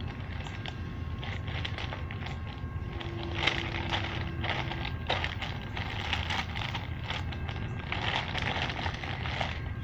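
Clear plastic zip bag crinkling and rustling in irregular bursts as it is handled, over a steady low background rumble.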